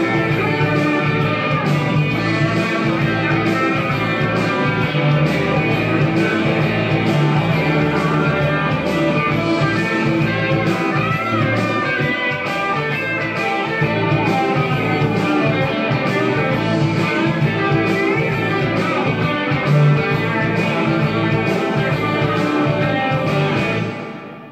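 Karaoke backing track's instrumental outro: guitar-led music with a steady beat and no singing, cutting off near the end.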